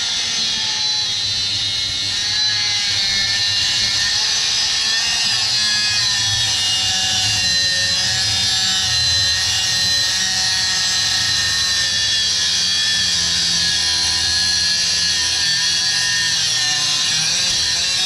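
A power tool running steadily as it cuts through the metal of a microwave oven magnetron, giving a loud, high-pitched whine with a hiss that wavers slightly in pitch as it bites.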